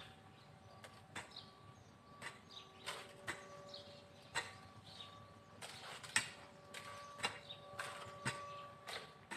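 Hand hoe (kudal) chopping into garden soil: irregular dull knocks and scrapes, roughly one a second, as the blade strikes and loosens the earth.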